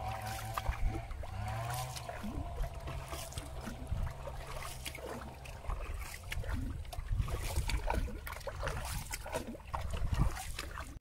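A small wooden boat being paddled: paddle strokes splashing and dripping in the water, with irregular knocks of the paddle and gear against the hull.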